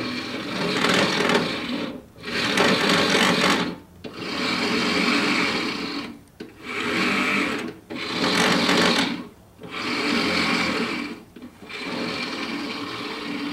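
The scratch-built RC bulldozer's electric drive motors and gearing run in about seven short spells of a second or two each, stopping briefly between them, as the transmitter stick is worked. The two sides are being run in opposite directions to turn.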